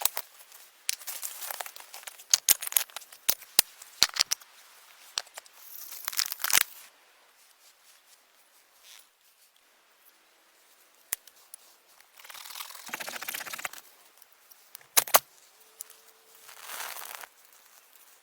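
Dry brush snapping and crackling, with many sharp snaps in the first few seconds. Later come several short bursts of rustling and tearing and a loud double snap.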